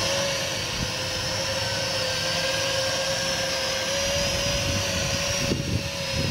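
FX176 GPS quadcopter drone running with its propellers spinning: a steady high-pitched hum whose pitch wavers slightly, over a low rumbling noise.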